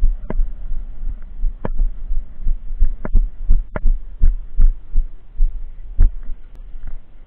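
Handling noise from a camera carried by someone walking: a steady low rumble on the microphone with irregular dull thumps, about one every half second to a second and a half.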